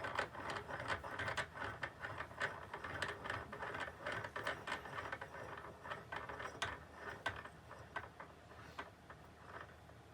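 Bench vise screw being cranked by its handle: irregular metallic clicking and rattling that thins out and stops near the end.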